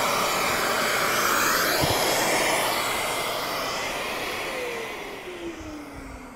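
Festool CT 36 dust extractor running with a steady rush of air, then switched off and spinning down: the rush fades and the motor's tone falls steadily in pitch over the last couple of seconds.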